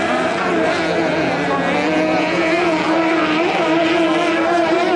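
Racing hydroplane powerboat engines running flat out, a steady high-pitched whine that wavers slightly in pitch.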